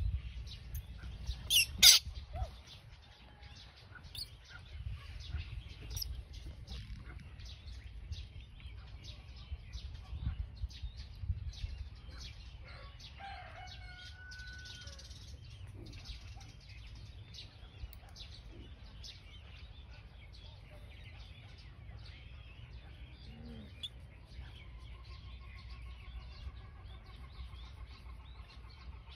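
Birds chirping over a low steady rumble, with one loud sharp click about two seconds in.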